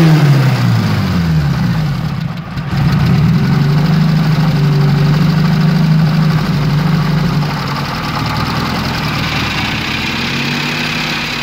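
Tavria 1.2-litre SOHC four-cylinder engine, revs falling in the first second or so, then idling steadily and a little quieter from about two-thirds of the way in. It has a knock that the owners think sounds like the camshaft.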